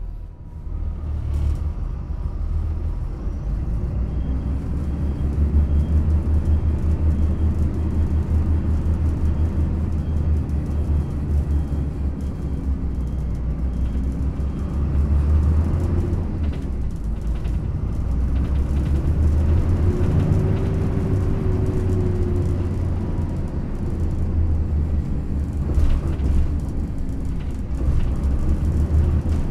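Yutong ZK6128HG low-floor city bus heard from on board while driving: a steady deep engine and drivetrain rumble with a faint tone that rises and falls as it pulls and its ZF automated-manual gearbox changes. Now and then the body knocks over uneven road.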